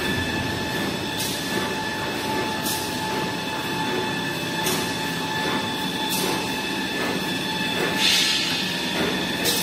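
Toilet-paper and kitchen-towel production line machinery running: a steady mechanical hum with a few constant whining tones, broken by short hissing bursts about every one and a half to two seconds, the loudest near the end.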